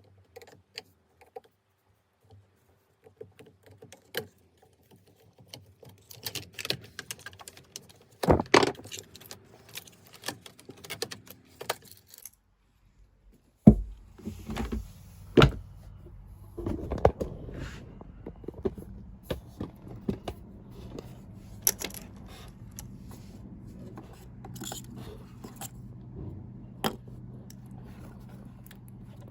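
Small metallic clicks and clinks of parts and tools being handled. After a hard knock about halfway through, a steady low machine hum starts and keeps running, with more handling clicks over it.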